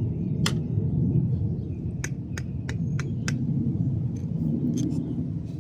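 Sharp small clicks of hand tools and metal hardware being worked on a car battery terminal, five in quick succession in the middle, over a steady low rumble.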